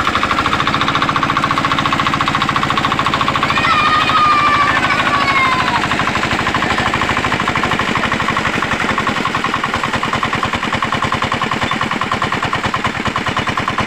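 Small single-cylinder diesel engine running steadily at speed with a rapid, even firing beat, driving a water pump, with water gushing from the pump outlet.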